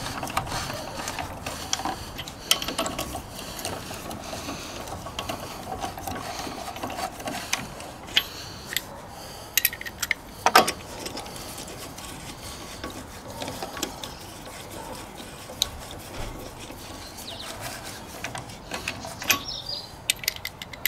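Socket-wrench and wheel-bolt hardware clicking and clinking as a car's wheel bolts are tightened, with a few sharp metal knocks about ten seconds in.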